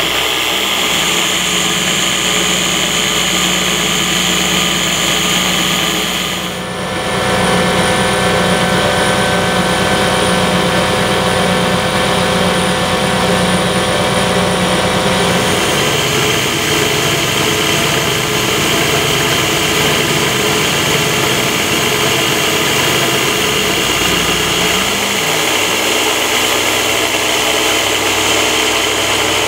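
Belt-driven spindle of a CNC-converted G0704/TM20VL benchtop milling machine, turning at about 3,100 RPM, with an end mill cutting aluminium in a steady roughing pass: a continuous high whine mixed with cutting noise, dipping briefly about seven seconds in.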